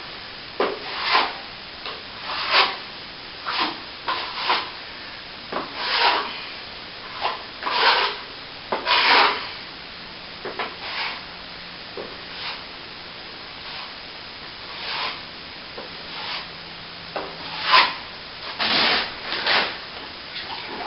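Steel plastering trowel scraped across a wall patch of nearly set plaster, in short separate strokes every second or two with pauses between.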